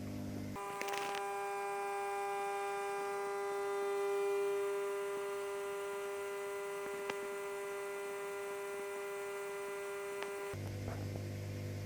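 Microwave oven running: a steady electrical hum with a few faint clicks. The hum jumps sharply up in pitch about half a second in and falls back just before the end. This is a test run of an oven with a fault that makes it shut itself off partway through heating.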